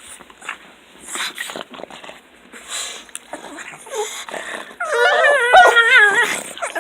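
Excited pug dogs greeting: short snorts and grunts, then about two-thirds of the way in a loud, wavering whining call that rises and falls in pitch like a yodel, lasting about a second and a half.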